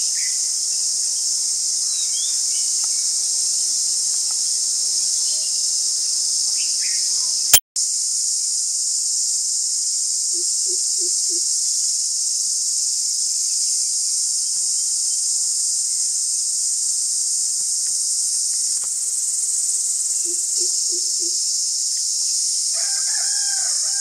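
Steady high-pitched insect chorus, with a greater coucal giving its deep hooting call twice, each a quick run of four low notes, about ten and about twenty seconds in. A sharp click and a brief dropout about seven and a half seconds in.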